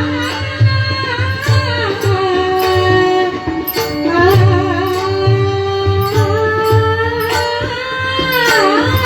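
Devotional bhajan (kirtan) music: a melodic sung line gliding over steady held instrumental notes, with a regular drum beat and sharp percussive strokes.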